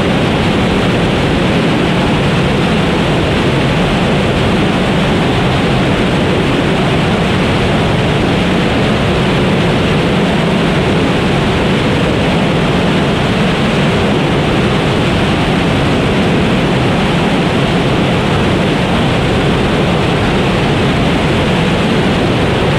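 Relativity Space Aeon R liquid-oxygen/methane rocket engine firing on a test stand during a full-duration hot-fire test: a loud, steady, even rush of exhaust noise that holds constant throughout.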